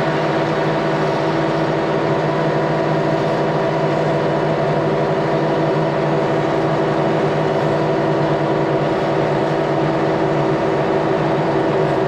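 Tractor engine running steadily while pulling a New Holland 644 round baler through a field of straw, a constant drone made of several even tones.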